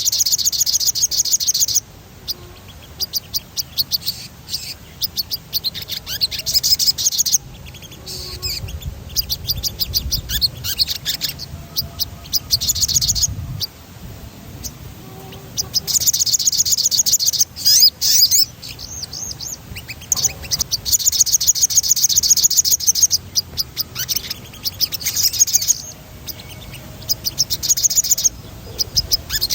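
A sogon songbird singing fast, high rolling trills in repeated bursts of one to three seconds, with short pauses between them.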